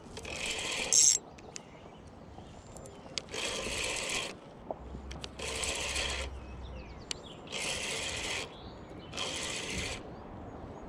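Fishing reel whirring in five bursts of about a second each, roughly every two seconds, as line is worked, with a sharp click about a second in.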